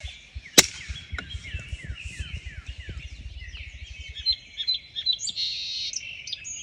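Several songbirds singing together, a chorus of quick downward-sliding chirps, with higher, faster trills joining after about four seconds. A single sharp crack about half a second in, and low crackling under the first half.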